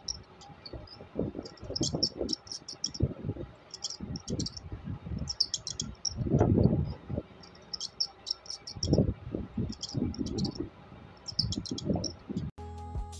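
Mice squeaking: short clusters of high chirps repeating about once a second, over low rustling scrabbles.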